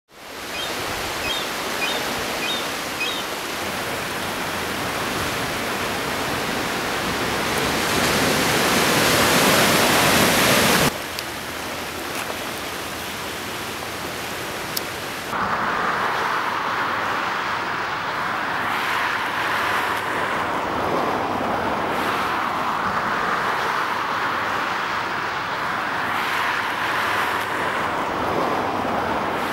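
Ocean surf: a continuous rushing wash of waves that swells about ten seconds in and then cuts off abruptly, changing about fifteen seconds in to a narrower, surging wash that rises and falls.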